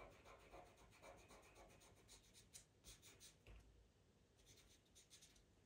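Pastel pencil scratching faintly on Pastelmat paper in quick short strokes, coming in flurries around the middle and again near the end, as dark hair lines are drawn.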